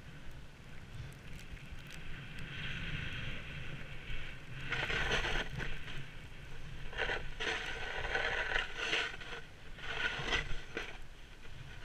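Edges sliding and scraping over packed snow through a series of turns, louder in several bursts from about halfway in, over a steady low wind rumble on the microphone.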